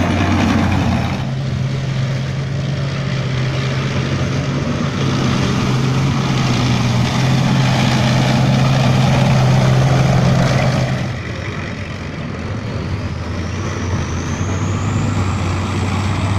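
Tracked armoured vehicles, a BTR-50-type carrier and then a BMP-1-type infantry fighting vehicle, drive past in turn with their diesel engines running in a steady low drone. The loudest pass fades about eleven seconds in as the next vehicle approaches, and a high rising whine comes in near the end.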